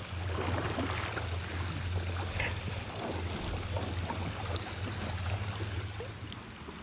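Creek water running in a steady wash, with a constant low rumble beneath it.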